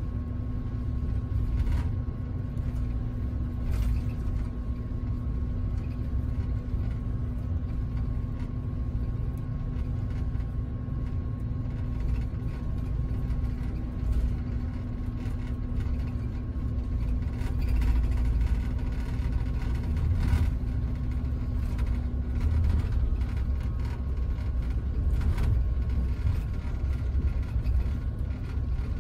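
Cabin noise on the upper deck of a Scania double-decker coach under way: a steady low rumble of engine and tyres with a steady hum, and a few short clicks from the interior.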